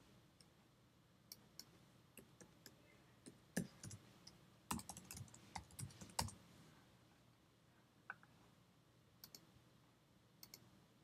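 Computer keyboard keys tapped in a quick run about halfway through, with a few single mouse clicks before and after.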